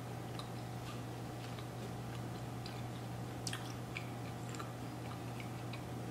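Closed-mouth chewing of a bite of pretzel dog: faint, scattered wet mouth clicks over a steady low hum.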